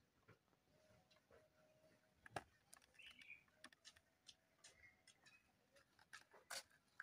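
Near silence, with faint scattered clicks and ticks; one is a little louder about two and a half seconds in.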